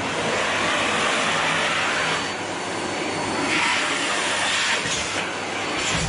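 Canister vacuum cleaner running: a steady motor hum under a loud rushing hiss of air that swells and eases a few times.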